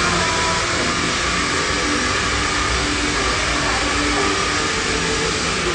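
Steady, loud rushing noise of a blower-type appliance running, with no breaks.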